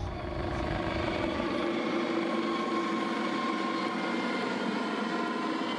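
Helicopter in flight: a steady whine of several held tones with a rushing noise beneath.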